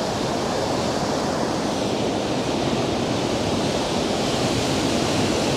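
Ocean surf breaking and washing over a rocky boulder shore, a steady rush that builds slightly toward the end.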